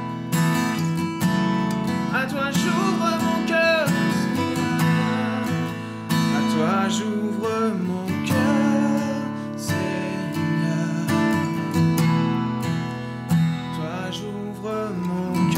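Cutaway acoustic guitar strummed in a steady rhythm as an instrumental passage of a slow worship song, with a man's voice coming in briefly near the end.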